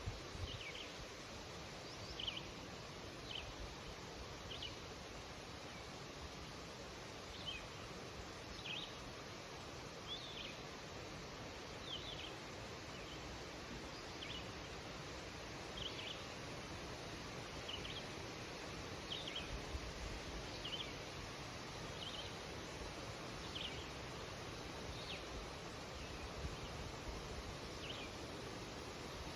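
Wind rustling through birch trees as a steady hiss, with a single bird chirping a short, high call over and over, about once every second and a half.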